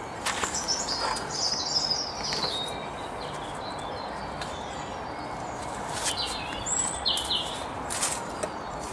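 Birds chirping in short high phrases, twice, with a few light clicks over a steady background hiss.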